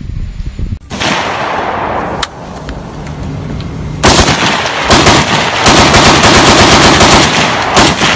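Automatic gunfire. A burst with a fading tail comes about a second in and a single sharp crack around two seconds. From about four seconds in there is a long stretch of loud rapid fire, broken once briefly.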